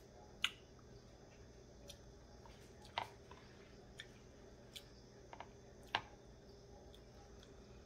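Sparse sharp clicks and light taps from eating pineapple and handling the cut pieces on a wooden cutting board. There are three louder clicks about every two and a half to three seconds and a few fainter taps between them, over the low hum of a quiet room.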